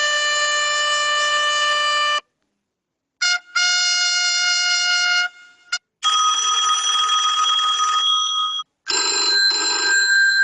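Phone ringtones played one after another: four short clips of brassy, trumpet-like held notes, each a steady tone that cuts off abruptly, with short gaps of silence between them.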